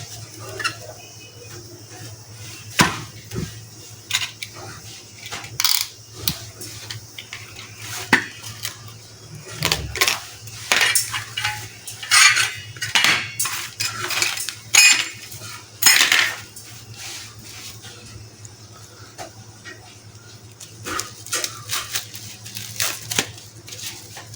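Irregular clinks, knocks and clatter of hard objects being handled and set down, busiest in the middle and sparser toward the end, over a faint steady low hum.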